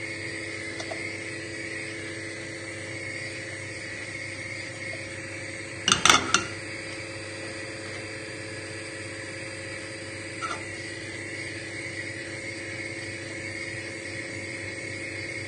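Steady electrical hum with a low hiss under it. About six seconds in, a brief loud clatter of a saucepan knocking against the gas hob's pan supports, and a single light knock later.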